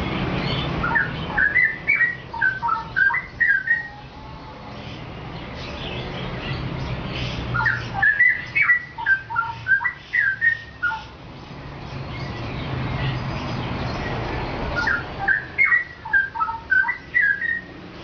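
Straw-headed bulbul (cucak rowo) singing: three phrases of rich whistled warbling, each about three seconds long, with pauses of several seconds between them. A low background hum grows louder in the pauses.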